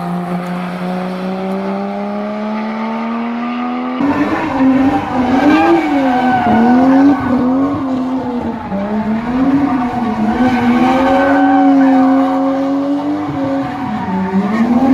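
A car engine accelerating, its pitch rising steadily for about four seconds. Then, after an abrupt cut, a car doing doughnuts: the engine revving up and down over and over while the spinning tyres squeal, louder than the first part.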